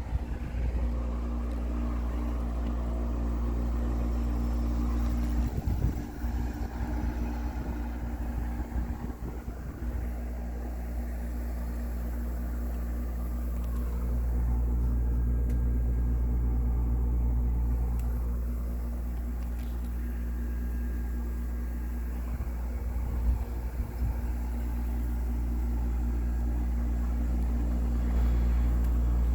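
Tempia window air conditioner running with a steady low hum and drone, with some irregular bumps a few seconds in.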